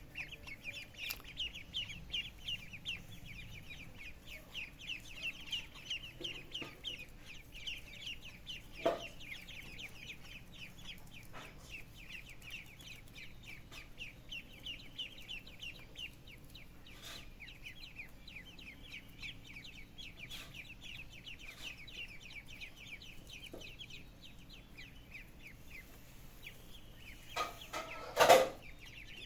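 Young poultry peeping, many rapid high chirps one after another. A brief sharp sound comes about nine seconds in, and a much louder brief sound near the end.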